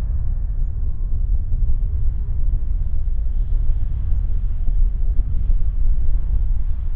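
Low, steady rumble of an Airbus A340-600's four Rolls-Royce Trent 500 turbofan engines as the aircraft turns and taxis slowly on the runway.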